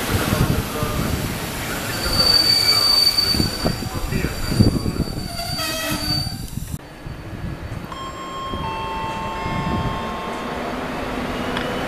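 Passenger coaches rolling past along the track, wheels running with a thin, high steady squeal. After an abrupt cut about seven seconds in, a locomotive-hauled passenger train runs in, with faint steady squealing tones over the rolling.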